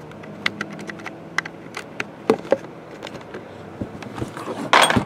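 Light, irregular clicks and taps, several a second, thinning out after about two and a half seconds, over a faint steady hum; a brief rustle near the end.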